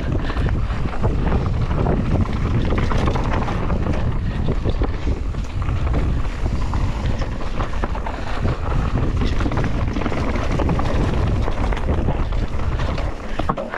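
Wind rushing over the microphone of a mountain bike ridden fast downhill, with the tyres rolling over dirt and a steady scatter of rattles and knocks from the bike over rough ground.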